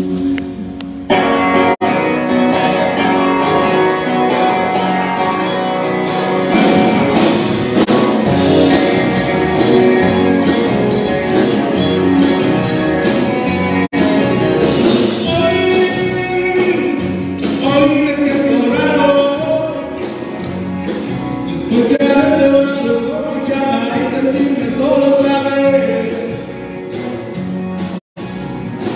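Live rock band playing loudly: electric guitars, bass and drums, with singing over the band. The sound cuts out briefly near the end.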